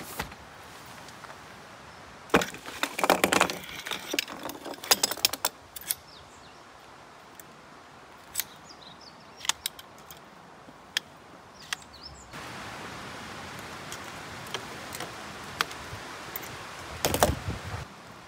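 Metal poles and fittings of a folding camp chair clattering and clicking against each other and a wooden deck as the chair is unpacked and assembled: a few seconds of rattling and knocks, then scattered single clicks, and another short clatter near the end.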